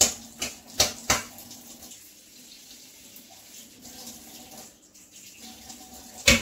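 Sharp clacks of kitchenware being handled: four in quick succession in the first second or so, then a quieter stretch with faint kitchen noise, and one more clack near the end.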